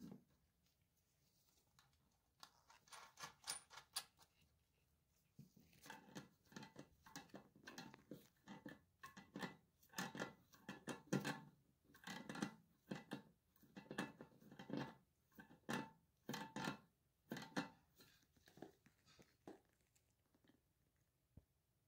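Wrench turning a nut down onto a brass closet bolt at the base of a porcelain toilet bowl: a run of short metallic clicks and scrapes, about two a second. A few come about two seconds in, then a short pause, then they run on steadily from about five seconds in.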